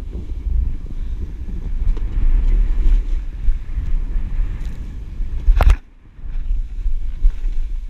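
Wind buffeting a body-mounted action camera's microphone during a fast slide downhill on snow, with a steady low rumble and the hiss of snow. A sharp knock about five and a half seconds in, followed by a brief lull.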